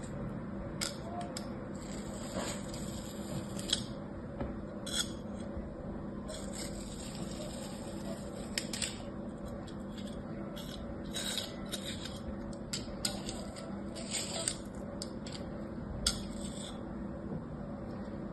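Utility knife blade scraping and slicing through kinetic sand packed in a plastic cookie-cutter mould: a series of short, irregular scraping strokes. A steady low hum runs underneath.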